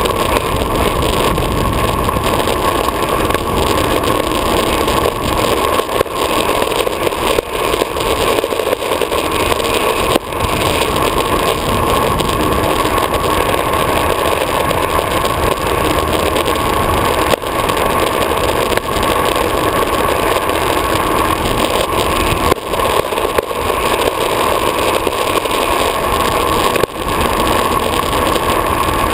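Downhill longboard running fast on asphalt: a steady rush of wind on the board-mounted camera mixed with the roar of urethane wheels rolling on the road, with a few brief dips.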